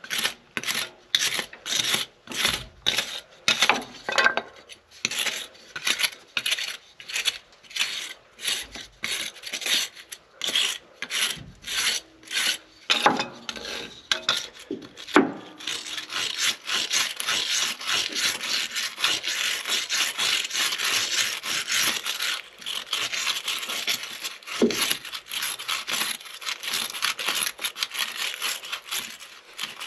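A stick scraping caked dirt and grime off the metal top of a Case 1070 tractor's power shift control module. It goes in even strokes about two a second at first, then about halfway through turns to quicker, almost continuous scraping.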